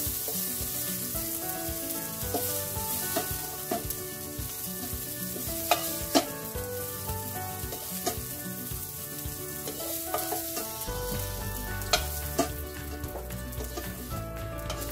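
Broccoli sizzling in a hot non-stick wok while a spatula scrapes and clicks against the pan, scooping the charred pieces out. Soft background music with a melody runs underneath, and a low bass joins near the end.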